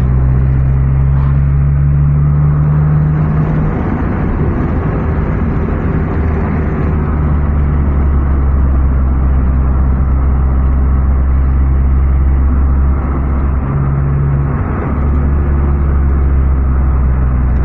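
Car engine and tyre noise heard from inside the moving car's cabin: a steady low drone whose engine note shifts a few times.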